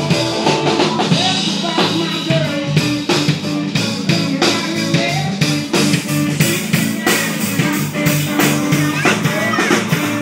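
Rock song playing, with a steady drum-kit beat, guitar and a singing voice.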